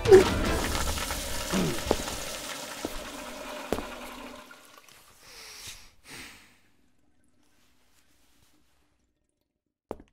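Toilet flushing: a loud rush of water that sets in suddenly and fades away over about four seconds.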